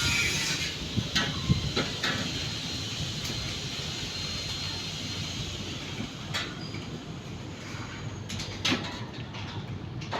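Irregular knocks and clatter, like wood and tools being handled on a construction site, over a steady background noise. A high hiss fades away over the first few seconds.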